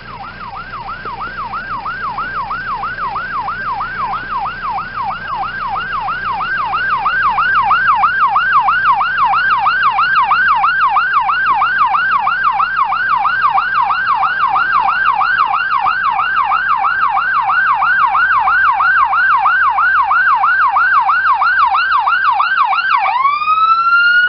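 Emergency vehicle siren on a fast yelp, rising sweeps repeating about twice a second and growing louder over the first several seconds. Near the end it dips in pitch, sweeps back up once and cuts off.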